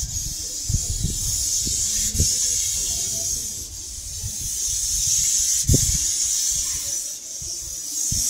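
Airless paint spray gun hissing as it sprays paint at high pressure, the hiss swelling and easing every second or two, over an uneven low rumble with a few thumps.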